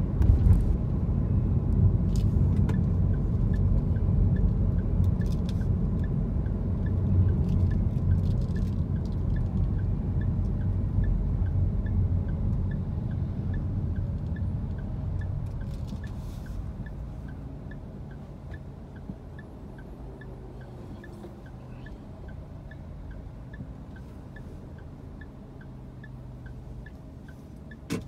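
Car interior: low road and engine rumble while driving, which fades about two-thirds of the way through as the car slows to a stop and idles. Under it runs a steady, quick ticking from the turn-signal indicator, and there is one sharp knock at the very end.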